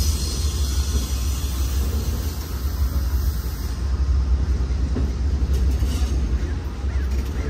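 Amtrak Superliner passenger cars of the California Zephyr rolling slowly past along the station track, a steady low rumble with a few faint clicks.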